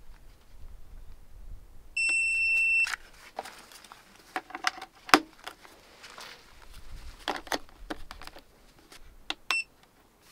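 Portable power station giving a steady electronic beep of just under a second as it switches on after its power button is pressed. Then come plastic clicks and knocks as a small charger is plugged into its front panel, and one short beep of the same pitch near the end.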